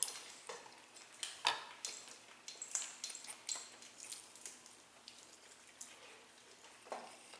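Eating sounds of roast chicken being eaten: irregular small wet clicks and crackles of chewing and handling the food, thinning out in the middle.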